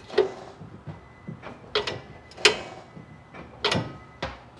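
Parking brake of a 2009 Nissan Titan being applied and released over and over, which centers the new parking brake shoes inside the rear rotor. About five sharp metallic clunks, several followed by a brief ringing.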